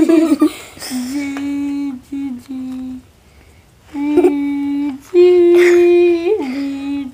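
A child making tooting notes through cupped hands held over the mouth: a string of steady held notes of about a second each, some lower and some a little higher, one turning upward at its end.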